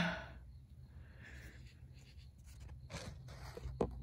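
Faint scraping and rubbing with a few light clicks near the end, from the phone camera being handled and repositioned, over a low steady hum.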